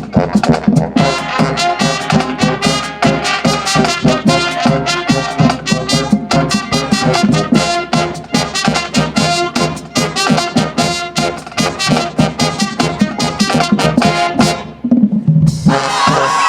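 High school show-style marching band playing: brass section with trumpets and trombones over rapid, driving drum strikes. About a second before the end the band drops to a lone low held note, then the full brass comes back in with sustained chords.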